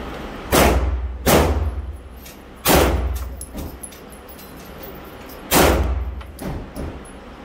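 Semi-automatic pistol fired four times at uneven intervals in an indoor shooting range, each shot followed by a brief echo off the range walls. Two fainter bangs come near the end.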